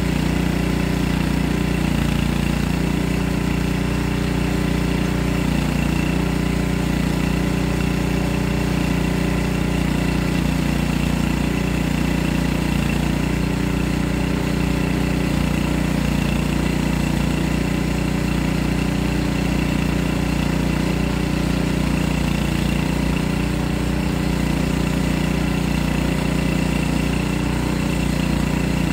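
Portable bandsaw mill running steadily, its engine holding an even speed as the saw head and band blade are pushed along a log.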